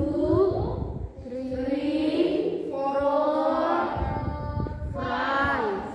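A voice singing or chanting in long held notes that slide up and down, in several phrases with short breaks, with no clear words.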